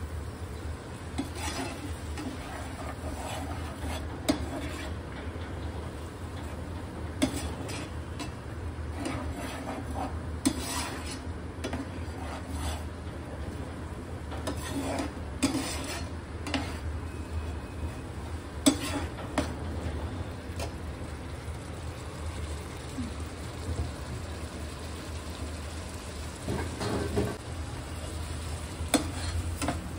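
A steel slotted spoon stirring and scraping watery masala paste in a nonstick frying pan, with sharp clinks now and then as it knocks the pan, over the faint sizzle of the masala cooking on the gas flame.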